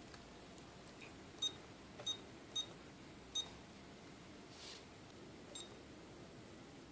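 Five short, high-pitched electronic beeps at uneven intervals, the loudest about a second and a half in, with a soft brief hiss near the end.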